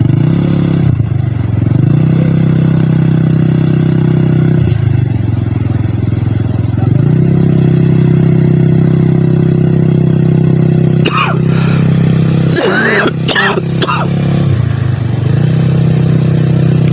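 Small ATV engine running close by, revving up and dropping back several times, holding a higher steady note through the middle as the quad pulls away across the sand.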